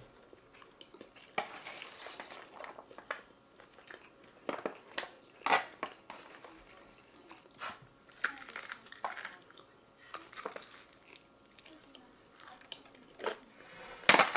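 People eating takeout food: chewing and mouth sounds, with plastic spoons and forks scraping and tapping in aluminium foil trays. The result is a scatter of short clicks and crinkles, the sharpest near the end.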